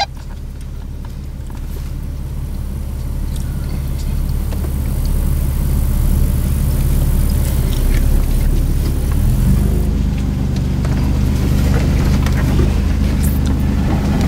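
Off-road 4x4 engine running at low speed, a steady low hum that grows slightly louder over the first several seconds. Its sound changes about nine to ten seconds in.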